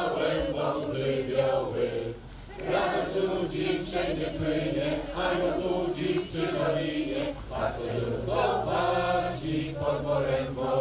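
A crowd of people singing a Polish Christmas carol together, phrase after phrase, with a short breath pause about two seconds in.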